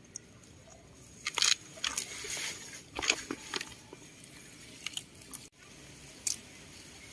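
A baby macaque and a rabbit biting and tearing fresh leafy stems: crisp crunching snaps in a few quick clusters between about one and four seconds in, then a few single snaps.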